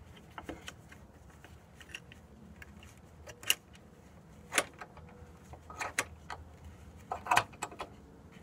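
Sharp metallic clinks and knocks as the steel brackets of a small wooden jig are handled and fitted against a wooden truss chord, a handful of separate clicks spaced a second or so apart.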